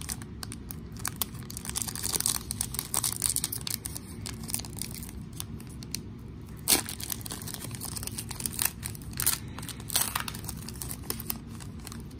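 Foil wrapper of a football trading-card pack being torn open and crinkled: a run of irregular crackling rustles, with one sharp crackle a little past halfway.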